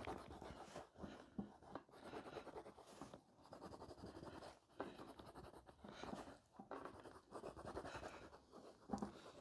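Crayon rubbing across paper in quick, faint scratchy strokes with short pauses between them, shading in colour.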